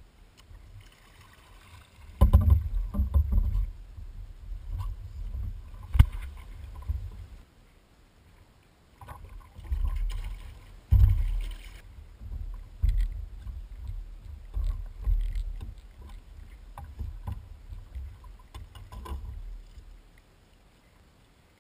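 Water splashing at a kayak's side as a hooked salmon is brought alongside, with irregular knocks and low thumps on the hull. A sharp knock comes about six seconds in.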